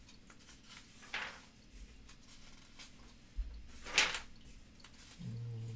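Glossy catalog pages being turned by hand: a soft paper swish about a second in and a louder one about four seconds in. A brief low hum follows near the end.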